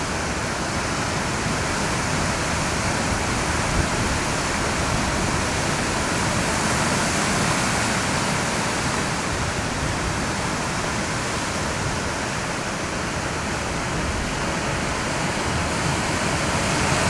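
Steady roar of ocean surf breaking on the rocks below a cliff: an even rushing noise with no break.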